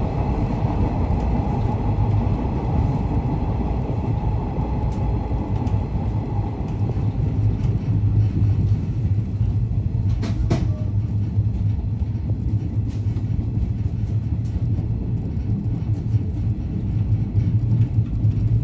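JNR 113 series electric train running, a steady low rumble, with a single sharp click about ten seconds in.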